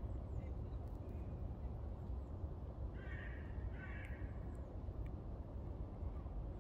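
Two short bird calls in quick succession about three seconds in, over a steady low rumble.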